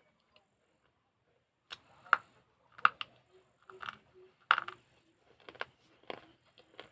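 Crisp crunches of a broken piece of fired clay pot being bitten and chewed, starting after a second or two of quiet and coming every half second to a second.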